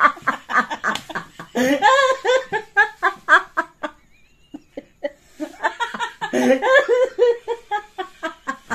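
A man and a woman laughing hard together, loud and in quick pulsing fits, with a short pause about four seconds in before the laughter picks up again.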